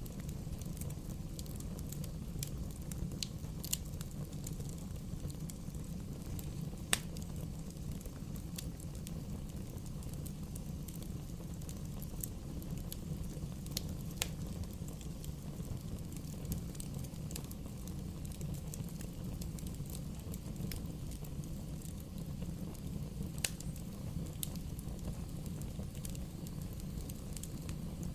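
Bonfire burning: a steady low rush of flames with scattered sharp crackles and pops from the burning wood, a few louder pops standing out.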